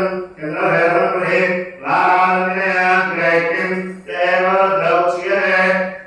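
Devotional song being chanted in a steady sing-song melody, in held phrases of about two seconds each with brief breaths between them. The singing stops right at the end.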